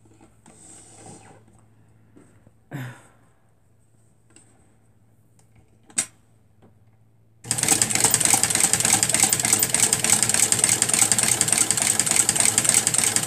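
A small portable electric sewing machine starts abruptly about halfway through and runs steadily at speed, stitching after being re-threaded. Before it starts there is a soft knock and a sharp click.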